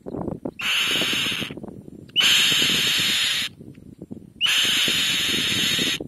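Black-winged kite at the nest giving three long, harsh, hissing screams, each a second or more, over a low rustling.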